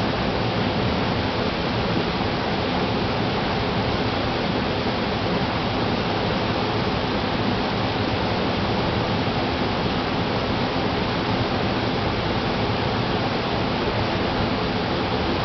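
Stream water rushing, a steady, even rush with no breaks.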